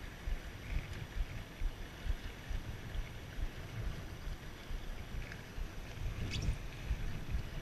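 Wind buffeting the microphone and water rushing past the hull of an Enterprise sailing dinghy under way, with one short knock a little after six seconds in.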